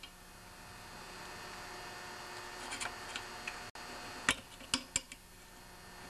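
A few small metallic clicks and taps, starting about three seconds in, from hands and a tool working the spring clip off the fuel line of a Tecumseh 8 hp engine, over a faint steady hiss.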